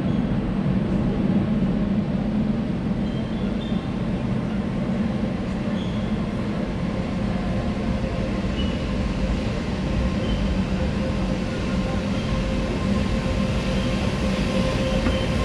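Renfe Alvia passenger train rolling slowly past the platform: a steady low rumble of wheels and running gear, with a steady hum that grows stronger in the second half and a few brief faint high squeaks.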